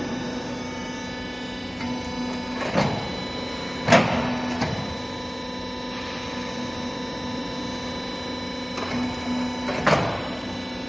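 Ridge tile forming machine running with a steady mechanical hum. Sharp clanks sound about 3 seconds in, again at about 4 seconds (the loudest), and once more near the end.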